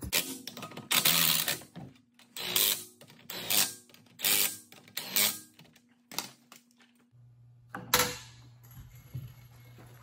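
Lug nuts being run down onto a car wheel's studs with a wrench, in about six short bursts, then a single sharp knock about eight seconds in. A low steady hum starts about seven seconds in.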